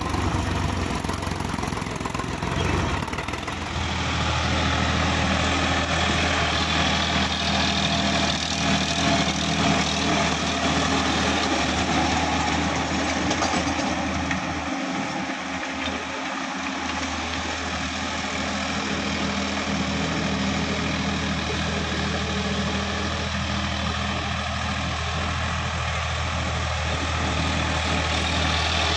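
Sonalika tractor diesel engine running steadily under load. For the first three seconds or so it hauls a loaded trailer through mud; then the sound changes to a tractor pulling a rear rotavator across a field, a steady engine hum with a constant low drone.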